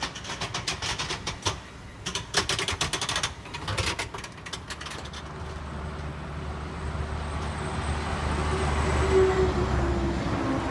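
A run of quick metallic rattles and clicks for about the first five seconds, then a Ford F-350 pickup driving slowly past, its engine rumbling and growing louder to a peak near the end.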